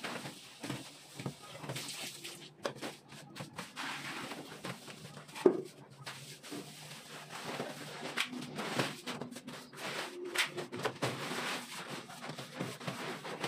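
Hand float rubbing and scraping over wet cement-and-sand plaster on a concrete ceiling slab in a series of short strokes, with scattered sharp clicks and one louder knock about five and a half seconds in.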